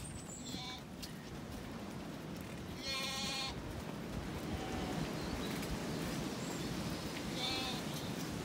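Zwartbles sheep bleating as the flock is driven along: one loud bleat about three seconds in, and a fainter, higher bleat near the end, over a steady noisy background.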